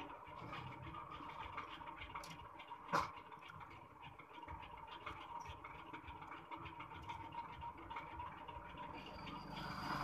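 Faint clicks and scrapes of small tools and parts being handled on an opened iPhone's charging-port flex, with one sharper click about three seconds in, over a steady background hum. A rushing noise swells near the end.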